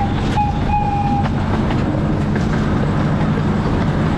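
Miniature train's horn giving the short then long blasts that close a long-long-short-long crossing signal, ending a little over a second in, over the steady running of the train with faint clicking of wheels on rail joints.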